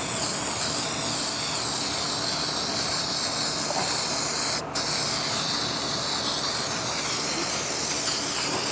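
Aerosol can of Rust-Oleum Automotive Enamel spraying white top coat in a steady hiss, with one short break a little past halfway where the nozzle is let go.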